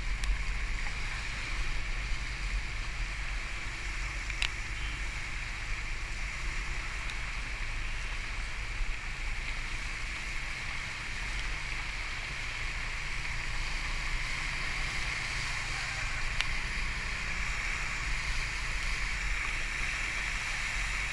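Motorcycle ploughing through floodwater on a street: a steady rush and splash of water thrown up by the tyres over a low engine and wind rumble, with a sharp click about four seconds in and another near sixteen seconds.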